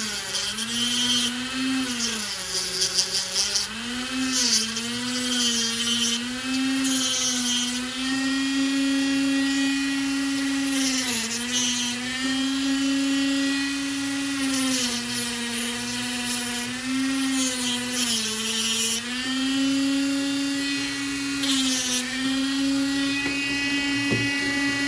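Dremel rotary tool on a flex shaft spinning a cutting wheel into a scope ring. Its high whine keeps sagging in pitch and recovering as the wheel bites and eases off.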